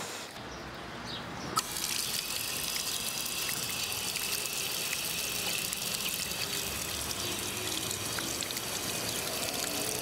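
Water from a stone wall fountain's spout splashing steadily into its basin, starting abruptly about one and a half seconds in.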